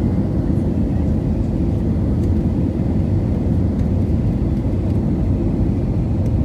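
Airbus A320 cabin noise on landing approach, heard from inside the cabin: a steady low rumble of engine and airflow noise.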